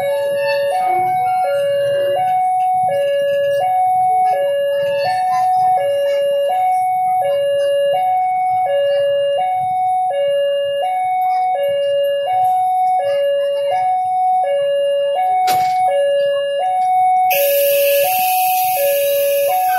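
Railway level-crossing warning alarm sounding continuously: an electronic two-note signal alternating evenly between a higher and a lower note, each held about three quarters of a second. About 17 seconds in, a loud hiss joins it.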